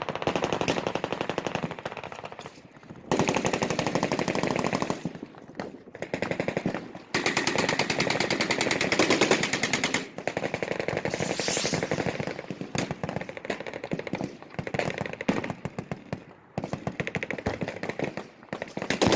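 Machine guns firing fully automatic, long rapid bursts with short pauses between them.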